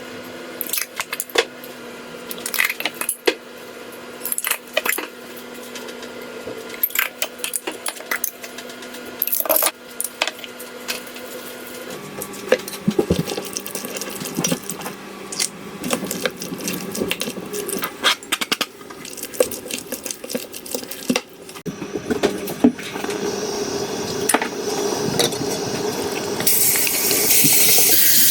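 Kitchen preparation: scattered clinks and taps of utensils against bowls and dishes while the tandoori chicken is prepared. A loud, steady hiss starts near the end.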